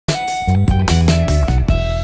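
Short intro jingle: a quick run of struck notes, ending about three-quarters of the way through in a held chord that rings on.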